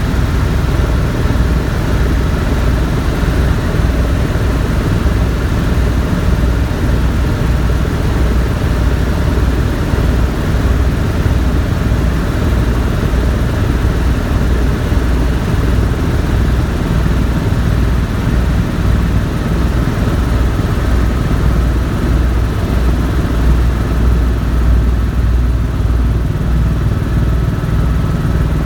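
Tour helicopter running in flight: a steady loud drone of the turbine and rotor, with a fast low thudding beat from the blades.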